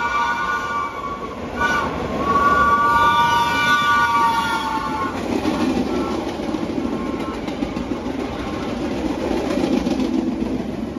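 A vintage New York City subway train's horn sounding as the train passes. The horn breaks off briefly about two seconds in, then sounds again, falling slightly in pitch, until about five seconds in. After that comes the rumble of the cars' wheels running over the rails.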